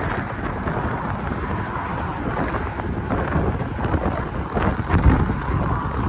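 Wind buffeting the microphone in a steady low rumble, with a stronger gust about five seconds in.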